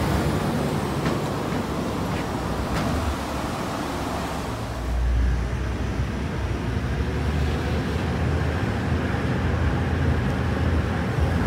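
Salt mine shaft cage moving in the shaft: a steady low rumble that swells about five seconds in, after a few light clicks.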